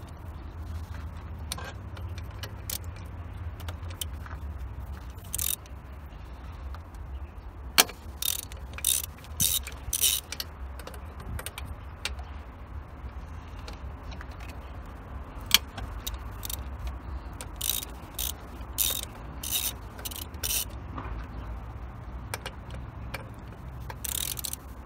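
Socket ratchet clicking in short runs of strokes, roughly two a second, while undoing the throttle body's mounting nuts, with a few single sharp metallic clicks between the runs over a steady low hum.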